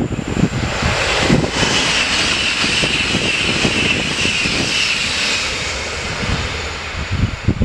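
PKP Intercity ED250 Pendolino electric high-speed train passing at speed: a loud rush of air and wheels on rail that swells about a second in, holds for several seconds and fades near the end.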